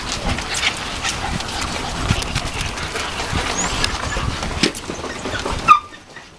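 Small dogs playing together, with scattered scuffling clicks and knocks and a few brief yips; a sharp knock near the end, after which the sound drops away suddenly.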